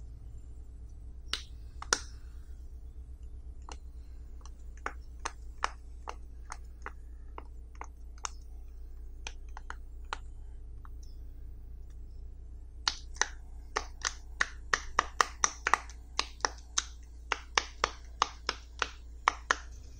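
Silicone pop-it fidget toy's bubbles being pressed in by fingers, each giving a sharp pop. The pops are scattered at first, then come in a quick run of two or three a second in the second half.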